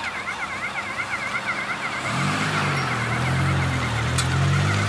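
A siren yelps in a fast, repeating warble throughout. From about two seconds in, it is joined by the louder note of a Honda Civic's four-cylinder engine driving slowly past, its pitch rising and then levelling off.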